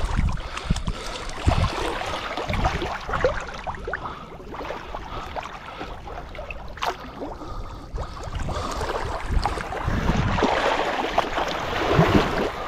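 Water splashing and sloshing irregularly as people wade through shallow backwater groping for fish, with wind rumbling on the microphone.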